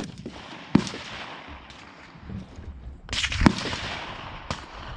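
Rifle shots on an outdoor range: about five single cracks at irregular intervals, the loudest right at the start and about three and a half seconds in, each trailing off in echo.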